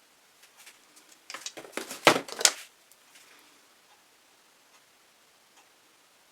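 Painting supplies being handled on the work table: a short flurry of sharp clicks and scrapes about a second and a half in, loudest near the middle, then quiet.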